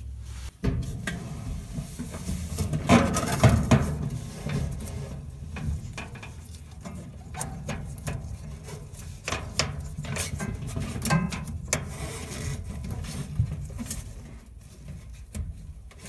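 Handling noise as a dryer drive belt is looped around the idler pulley and motor shaft: scattered rubbing, clicks and light knocks of the belt, pulley and metal parts, busiest about three seconds in.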